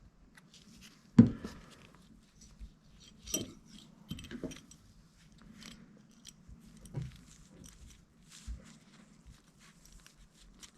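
Scattered light clicks and knocks of the metal parts of an adjustable wrench being handled and fitted together during reassembly, with one sharper knock about a second in.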